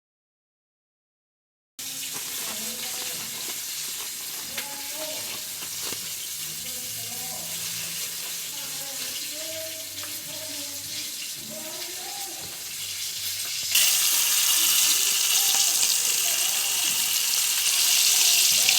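After a second and a half of dead silence, hot oil sizzles steadily as chicken fries in a pot, with faint voices behind it. About fourteen seconds in a louder, brighter hiss starts and carries on to the end.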